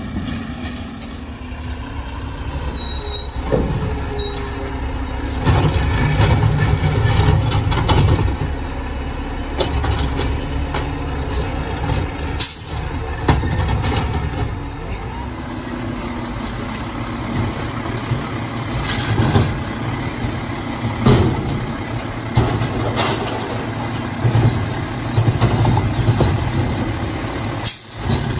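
Garbage truck diesel engines running and revving up in bursts as the hydraulic arms lift and dump curbside carts, with a few sharp clunks and hisses.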